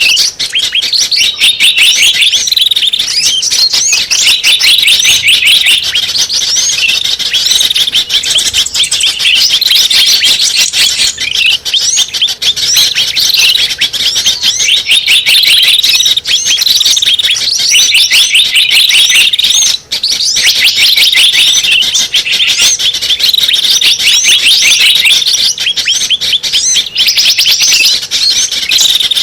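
Bird-lure recording for small birds: a dense, continuous chorus of many overlapping high chirps, twitters and trills from several small birds at once, played loud to draw small birds in.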